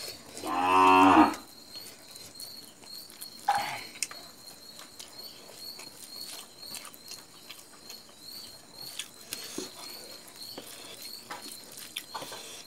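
A cow moos once, a single call about a second long, shortly after the start. After it come faint clicks and smacks of hand-eating from a steel bowl.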